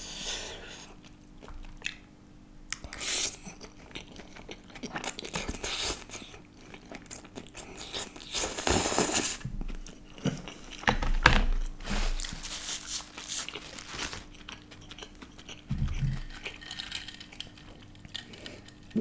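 Close-miked chewing and biting of a mouthful of charred flat noodles with vegetables: irregular wet mouth sounds, loudest around the middle.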